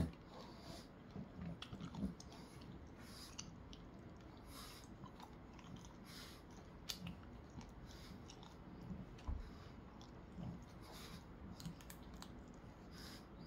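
A small dog scratching and digging at a pile of fleece blankets with its paws, making faint irregular scratching and rustling: nesting behaviour, working the blankets into a bed.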